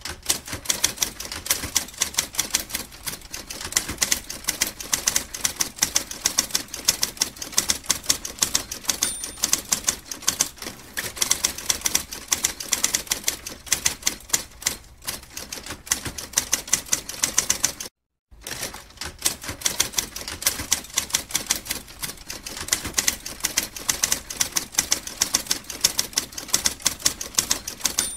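Typewriter keys clacking in a rapid, continuous run of keystrokes as text is typed out, with one brief pause about two-thirds of the way through.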